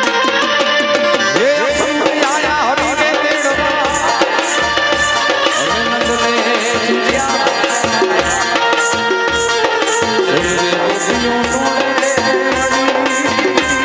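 Live Indian folk music: a steady tabla-style hand-drum beat under an electronic keyboard melody, with a wavering, bending melodic line early on.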